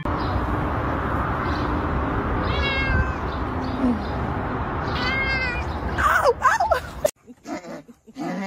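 A cat meowing: two short high meows, then louder drawn-out meows, over a steady background hiss that cuts off abruptly about seven seconds in.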